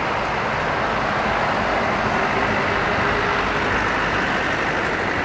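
Boeing 777-200ER's Rolls-Royce Trent jet engines running at high power as the airliner rolls down the runway: a loud, steady rush of jet noise that swells slightly a couple of seconds in.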